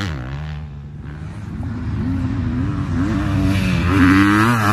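Dirt bike engine accelerating hard, its pitch climbing and dropping back again and again as it shifts up through the gears. It grows louder as the bike approaches and is loudest near the end.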